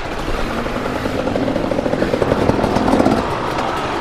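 Kawasaki KLX110 pit bike's small single-cylinder four-stroke engine running as the bike rolls along a dirt track, the engine note firming up about two to three seconds in. Other dirt bikes are running around it.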